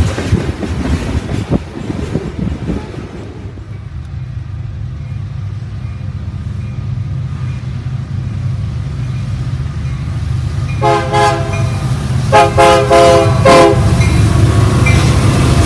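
Covered hopper cars of a freight train rolling past with wheel clatter, then diesel freight locomotives approaching with a low engine rumble that grows louder as they pass. Their multi-chime air horn sounds twice, a shorter blast and then a longer one.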